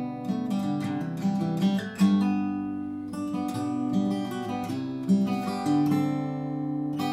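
A 2001 Taylor 714C Grand Auditorium acoustic guitar, cedar top with rosewood back and sides, played fingerstyle with a capo, unamplified: a melody of plucked notes over ringing bass notes. Around the middle the notes are left to ring before the picking resumes.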